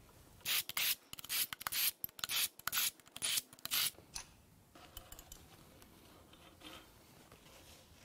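Hand ratchet clicking in a rapid run of short bursts, about a dozen over three and a half seconds, as connecting-rod cap bolts are backed out. Then only faint handling noises of metal parts.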